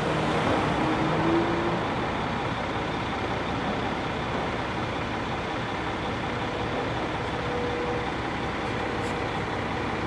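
Boom truck's engine running steadily, a continuous even drone.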